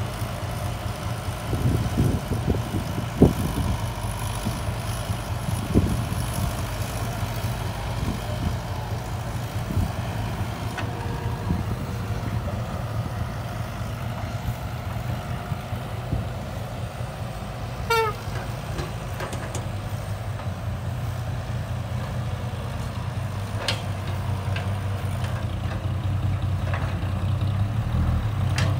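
Heavy diesel engines of a tracked excavator and a Fuso dump truck running steadily while the excavator loads the truck, with a few sharp thumps in the first several seconds. About two-thirds of the way through comes a brief falling chirp, and near the end the engine grows louder.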